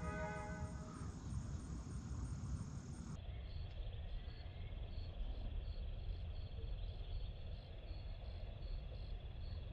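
Background music fades out in the first second. From about three seconds in, a steady high insect trill runs over a low outdoor rumble.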